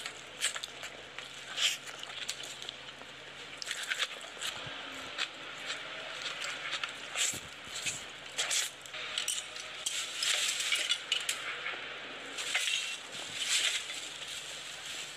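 Irregular sharp clicks and clinks, a few of them louder knocks, over a steady low hum.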